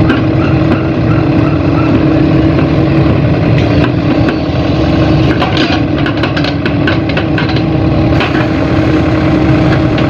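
Crawler excavator's diesel engine running steadily with a low hum while the boom and bucket are moved. A quick run of light knocks comes a little past the middle.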